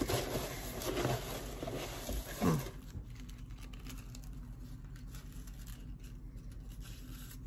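Rustling and crinkling of packaging as items are lifted out of a box of crinkle-cut paper shred and a sheer organza bag is handled, with a click at the start; after about three seconds the handling dies down to faint room noise.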